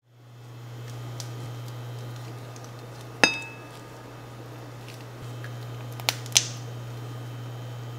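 A non-stick frying pan on an induction hob, heard under a steady low hum: a single sharp metallic clink with a short ring about three seconds in, then two lighter clicks a little after six seconds as a tube's nozzle works over the pan.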